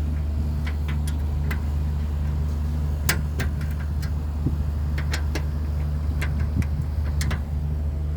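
Steady low machinery hum of running chiller plant, with a pulsing drone under it, and about ten sharp clicks scattered through it.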